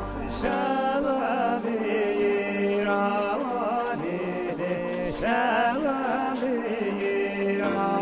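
Background music: a voice singing a wavering, ornamented melody over a steady drone.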